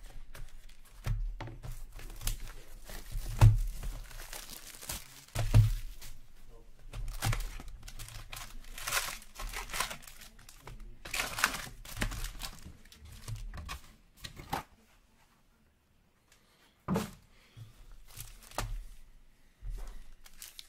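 A trading-card box's plastic wrapping being slit and torn open, then foil card packs crinkling as they are pulled out and stacked, with several thumps from the box and packs being handled. It goes quiet for about two seconds near the end, then there is a sharp thump.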